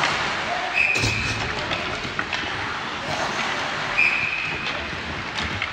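Ice hockey practice on a rink: skates scraping the ice, with scattered sharp knocks of sticks and pucks and short shouts. A short, high whistle blast sounds about a second in and again about four seconds in.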